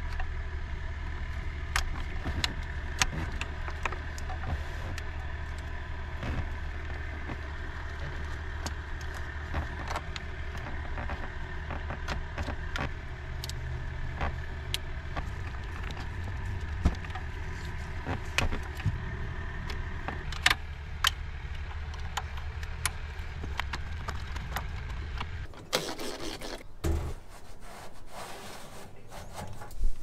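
Clicks and light rattles of wire connectors and plastic dash parts being handled, over a steady low hum. The hum stops about four-fifths of the way through, leaving quieter handling sounds and a sharp click at the very end.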